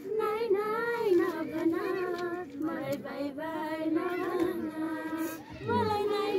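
Young girls singing a song together, unaccompanied, with held and bending notes, pausing briefly for breath about five and a half seconds in.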